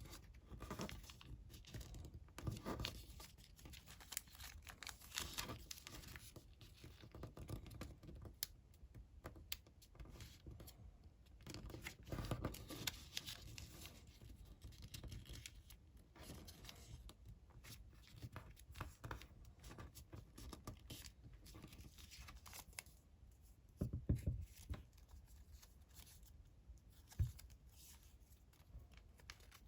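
Square of colored origami paper being handled, folded and creased, with irregular rustling and crinkling. Two brief low thumps come near the end.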